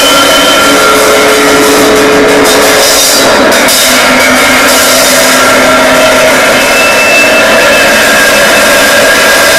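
Amplified tin cans run through echo and an amplifier, making a loud, dense wall of noise with held tones that come and go.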